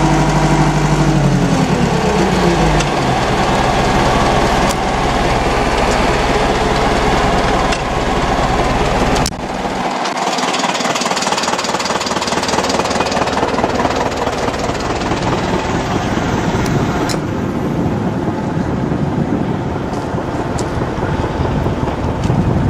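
Tractor engine running, its note falling about one to three seconds in. From about nine seconds on, the deep engine sound drops away and wind buffets the microphone.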